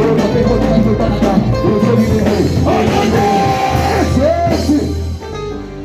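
Church worship music from a band with voices singing over a steady bass line. It thins out and drops in loudness a little after five seconds in.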